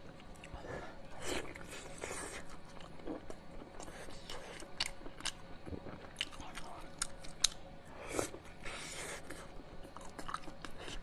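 Close-miked eating: a person biting and chewing big mouthfuls of pork belly, with irregular wet clicks and smacks throughout.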